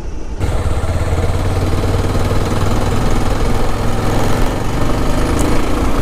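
A vehicle's engine running steadily on the move, a low even hum under a steady rushing hiss of road and wind noise.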